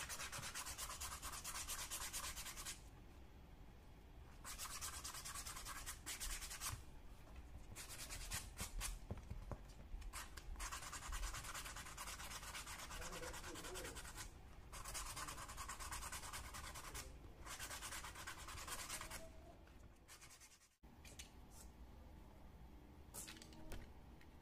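Hand sanding the stacked leather edges of a stitched wallet with a small sanding block. It comes in runs of quick back-and-forth strokes with short pauses between them, and the stroking stops about three-quarters of the way through.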